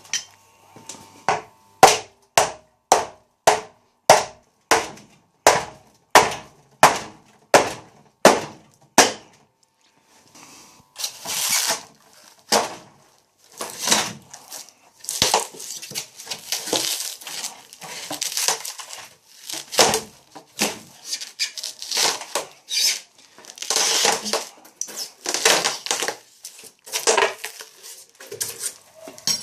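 The casing of an electric storage water heater being broken apart to take off its top and bottom. First comes a run of sharp blows, about two a second for some eight seconds. Then, after a short pause, irregular crunching, scraping and tearing.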